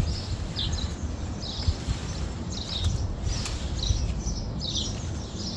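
A bird chirping over and over, short high notes that dip in pitch, about two a second, over a steady low rumble.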